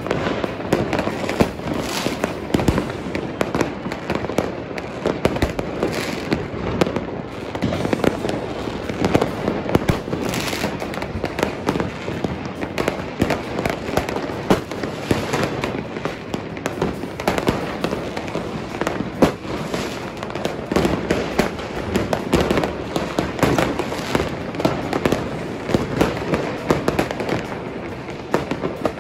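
Fireworks and firecrackers going off all over a city at once: a constant barrage of overlapping bangs and crackles with no let-up.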